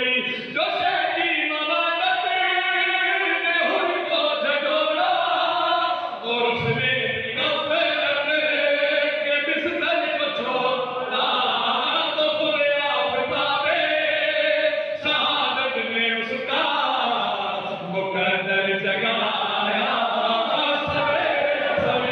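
A man's voice chanting a devotional recitation through a microphone, in long melodic phrases with sustained held notes.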